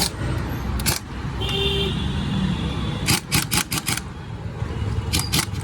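Street traffic rumbling steadily, with a short high-pitched beep like a vehicle horn about a second and a half in. Two bursts of rapid clicking follow, about six clicks a second, at around three seconds and again near the end.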